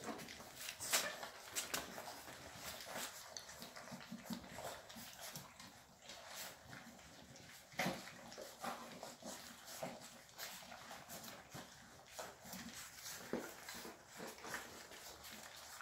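Litter of Llewellin setter puppies feeding from a stainless steel pan: busy lapping and chewing, with scattered sharp clicks of mouths and paws against the metal and the odd short whimper.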